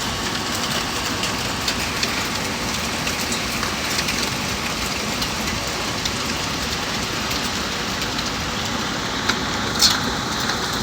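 Hail mixed with rain falling steadily: a dense hiss scattered with many small sharp ticks as hailstones strike hard surfaces, with one louder strike near the end.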